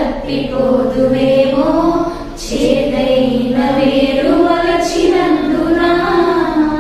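A woman singing a slow Telugu song alone, holding long notes with short breaths between phrases.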